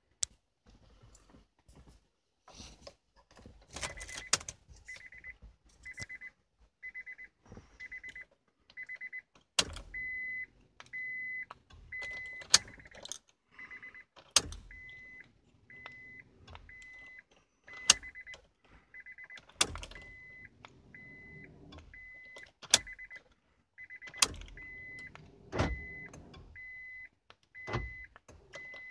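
A Honda's warning chime beeping over and over, a single high note about one and a half times a second, starting about four seconds in, the reminder for a key left in the ignition with the driver's door open. Sharp clicks and several heavier clunks break in as the key is turned in the ignition and the remote's buttons are worked during key fob programming.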